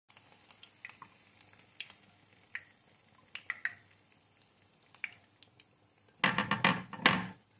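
Hot olive oil crackling faintly in a frying pan, with scattered small pops and ticks, as a fried egg is lifted out with a skimmer. Near the end comes a louder clatter lasting about a second.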